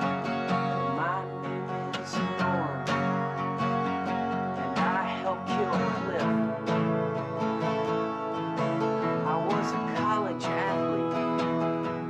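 Two acoustic guitars strummed and picked together in a steady song, with a man's voice singing over them at times.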